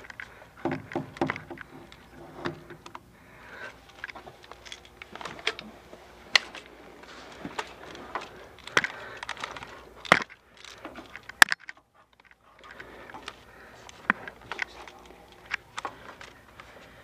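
Irregular rattling and clicking of an airsoft player's gear as he moves, with scattered sharp knocks. The sound drops out briefly about twelve seconds in.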